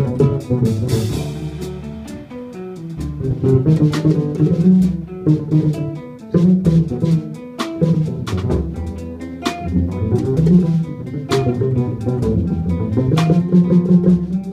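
Live jazz trio of hollow-body archtop electric guitar, upright double bass and drum kit playing together: the guitar picks busy lines over a walking bass line, with frequent sharp drum and cymbal hits.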